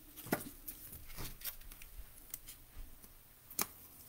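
Faint rustling and clicking of cardboard trading cards being handled and shuffled through by hand, with a few sharper clicks, one about a third of a second in and one near the end.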